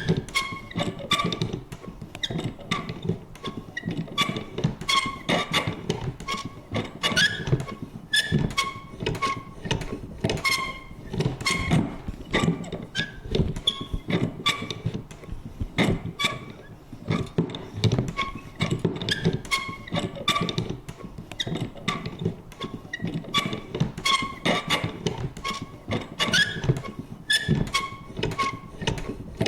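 Vintage paper punch worked over and over: a rapid, uneven run of thunks, about two or three a second, each with a short creak or squeak from the mechanism.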